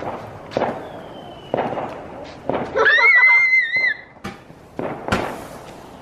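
A firework fizzing in short spurts after its fuse is lit, then a rocket firework launching with a sharp burst of noise near the end. A brief high wavering squeal is heard about three seconds in.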